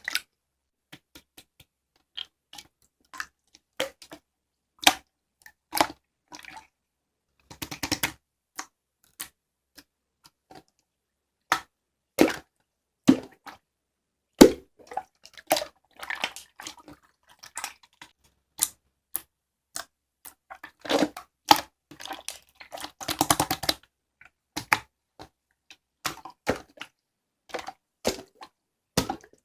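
Slime being squished and pressed by hand: scattered sticky clicks and pops with short silences between, and two longer crackling squelches, about a quarter of the way in and again past three quarters.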